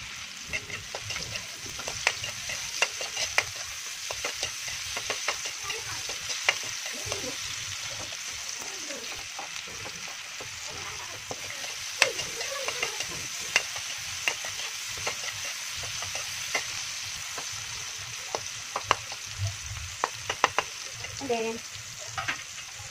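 Onion, garlic and tomato sizzling in oil in a wok, with a steady hiss, while a ladle stirs them, scraping and clicking sharply against the pan many times.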